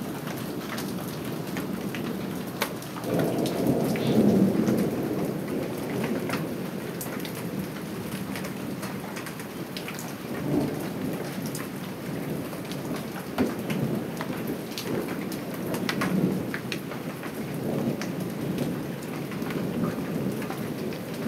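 Thunderstorm: steady rain falling, with repeated low rumbles of thunder rolling through. The loudest rumble comes about three to five seconds in, and lighter ones follow every few seconds.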